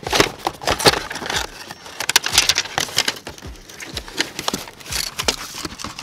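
Cardboard boxes of ignition coils rustling, scraping and knocking together as a hand sorts through a shipping carton and lifts one out: a busy run of irregular scrapes and taps.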